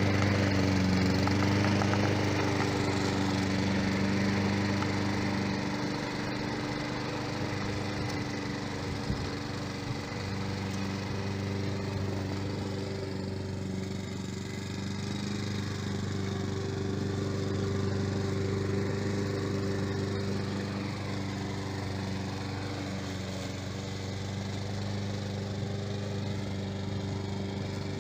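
Remote-control tracked lawn mower running steadily, its motor holding an even pitch under a rough, crackling noise. It is a little louder in the first few seconds, then settles.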